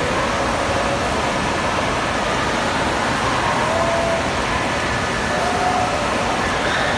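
Wave pool waves churning and breaking in the shallow end: a steady, loud rush of water with faint voices of children just audible over it.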